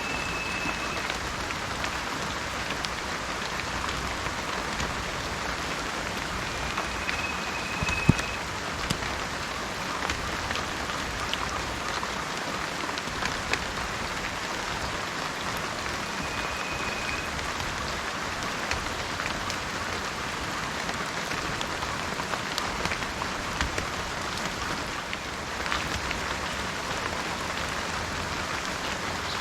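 Steady rain falling on a surface: a continuous hiss with scattered sharp drop ticks and one louder tap about eight seconds in. Three brief, high, steady whistled notes come through it.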